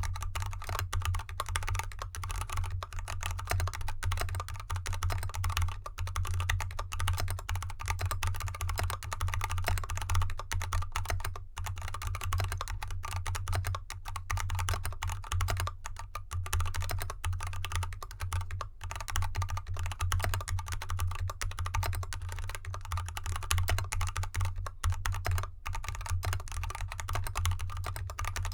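Continuous fast typing on a mechanical keyboard with unlubricated Kailh Box Red Pro 35gf linear switches and XDA keycaps, in an aluminium case with dampening foam, resting on felt fabric. The keystrokes are a dense, steady stream of clicks and clacks.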